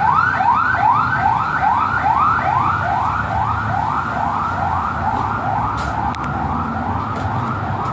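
Electronic vehicle siren sounding a fast yelp: rising sweeps repeated about three times a second, steady and loud.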